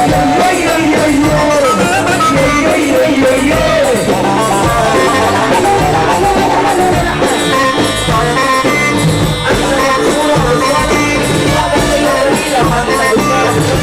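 Music from an Egyptian Arabic song: a band plays a winding melody over a steady beat.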